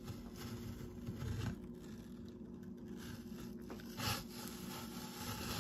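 Hand-cranked apple peeler-corer-slicer (Norpro Apple Master) turned slowly: faint scraping and rasping as the blade works into the apple turning on its prongs.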